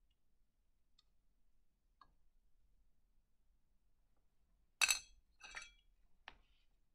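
Pieces of wet opal rough clinking against one another and the dish as a stone is put back and others are picked out: one loud clink just before five seconds in, then two lighter ones over the next second and a half, with a couple of faint ticks earlier.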